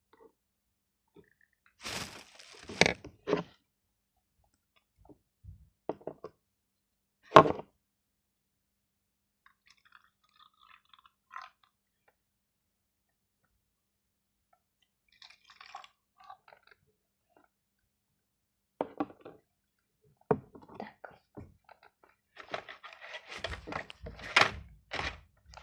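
Scattered short knocks, clicks and crinkly rustles of craft materials being handled on a table, with a busier run of rustling and knocking near the end.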